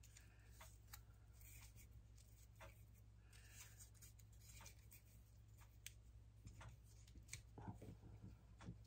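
Near silence with faint, scattered ticks and rustles of paper and craft materials being handled on a scrapbook layout.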